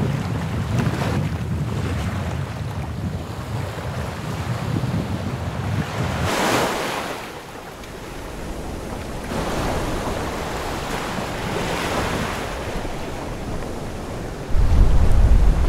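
Sailboat under sail: water rushing along the hull in several surging washes, with wind buffeting the microphone as a low rumble. Near the end a heavy gust of wind on the microphone sets in suddenly and louder.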